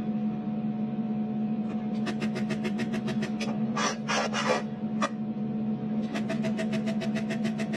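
Handheld spot welding pen zapping a small metal tab onto a steel cup: rapid sharp clicks, about six or seven a second, in two runs, with two short harsher bursts about four seconds in, over a steady hum.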